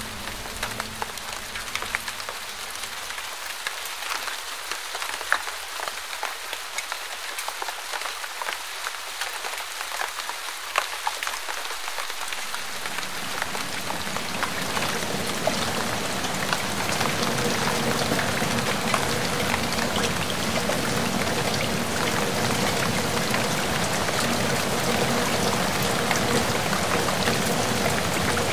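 Steady rain: a dense hiss of falling drops with fine patters and crackles, growing fuller and louder about halfway through.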